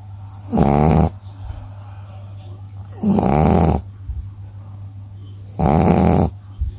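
Shih Tzu snoring loudly in its sleep: three snores about two and a half seconds apart, each lasting under a second, with quieter breathing in between.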